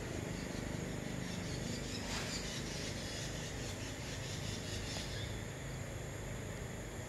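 Insect chirring in a rapid, even pulse, high-pitched, fading out about five seconds in, over a steady low rumble.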